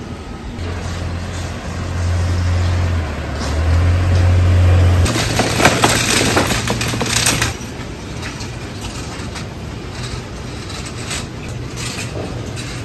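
A low engine hum for the first few seconds, then a loud metallic clatter and rattle with sharp clicks, followed by scattered clicks, as the folding metal scissor frame of a pop-up canopy is worked open.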